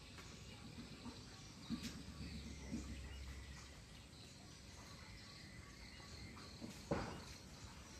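Quiet background ambience, with a sharp click about two seconds in and a louder knock near the end.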